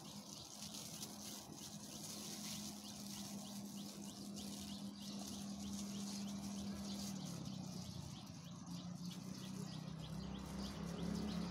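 Quiet outdoor background: a steady low hum that drops slightly in pitch about seven seconds in, under a fast, even, high-pitched ticking.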